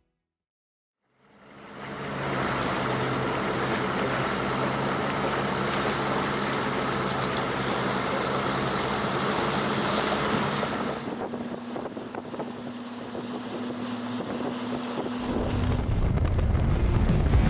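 Outboard-powered Fjordling 17 powerboats running at speed: a steady engine drone over rushing water and wind, fading in after about a second of silence. Near the end it turns into a louder, deeper rumble of wind and wake heard from aboard a running boat.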